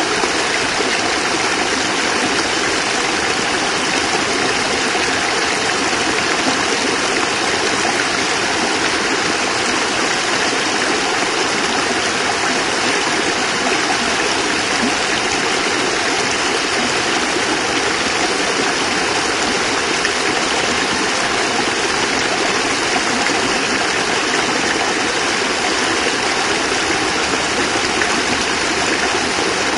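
Small cascade of water pouring steadily over rocks into a stream, a constant even rush with no change.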